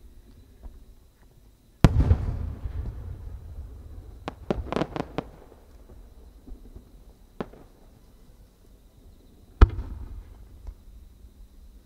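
Japanese aerial fireworks shells going off in the open: a loud boom with a long echoing rumble, a quick run of about six sharp cracks a few seconds later, a single crack, then another loud boom with echoing rumble near the end.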